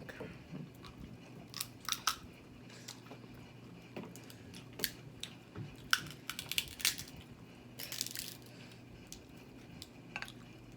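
Crab shells being cracked and picked apart by hand while eating: scattered sharp cracks and crunches, coming thickest about two thirds of the way through.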